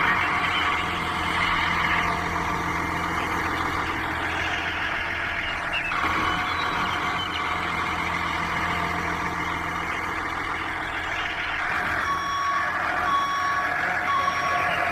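A vehicle engine running steadily. About twelve seconds in, a reversing alarm starts beeping at an even pace, a little under two beeps a second.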